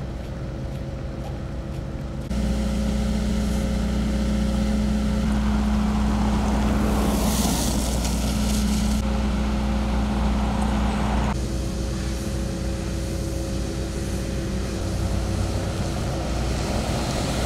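Road traffic with the diesel engine of a Hamm road roller running steadily. A car passes close about seven to nine seconds in with a rise of tyre hiss. The background jumps abruptly in level and character several times.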